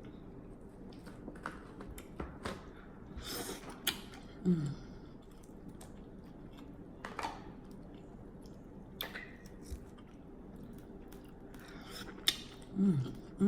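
Close-up eating sounds: wet mouth smacking and chewing, with scattered sharp clicks and a couple of brief falling hums.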